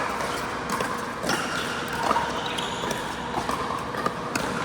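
Pickleball play: sharp, irregular knocks of paddles hitting the plastic ball and the ball bouncing on the court, over a steady background din.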